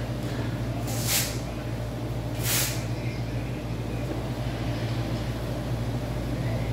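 Two short rips of Velcro as a weightlifting glove's wrist straps are pulled and fastened, about one second and two and a half seconds in, over a steady low hum.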